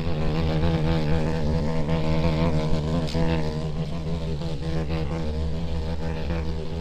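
A flying insect buzzing steadily, its pitch wavering slightly.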